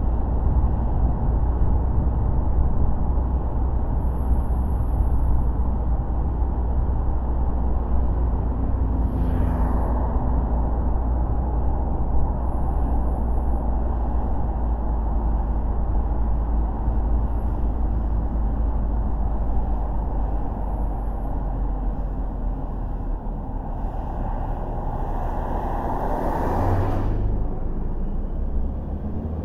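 Steady low rumble of a car driving, with road noise. A brief rush of noise comes about nine seconds in, and a longer, louder one from about twenty-four to twenty-seven seconds.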